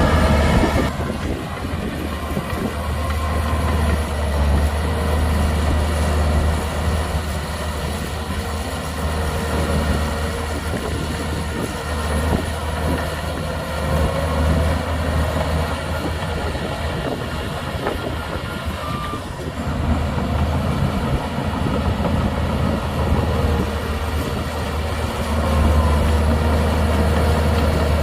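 Shantui DH17C2 crawler bulldozer's diesel engine running steadily with a deep hum, its loudness swelling and easing as it works, louder again near the end.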